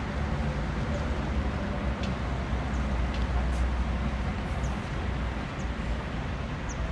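Steady city traffic noise, an even low rumble, with a few faint short high chirps.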